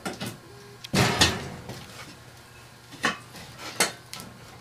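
Metal clanks and knocks from a welded steel mill housing and its bolted end plate being handled and set about on a workbench. The heaviest clatter comes about a second in, followed by a few lighter single knocks near the end.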